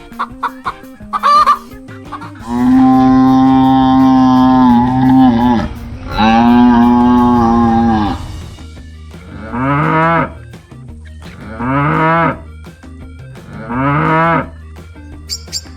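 Cow mooing: two long, steady moos followed by three shorter calls that rise and fall in pitch, after a few chicken clucks at the start.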